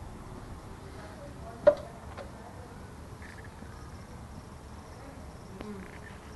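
Insects buzzing steadily, with one sharp click about a second and a half in.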